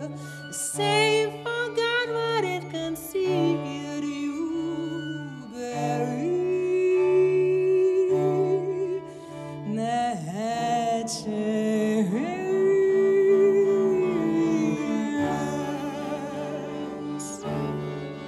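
A woman singing a sliding melodic line with long held notes and vibrato over a string trio of violin, viola and cello, the cello repeating a low pulsing note underneath. The voice drops out near the end, leaving the strings playing.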